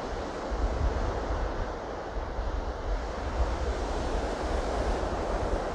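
Ocean surf breaking and washing up a sandy beach, a steady rush, with wind buffeting the microphone as a low rumble from about half a second in.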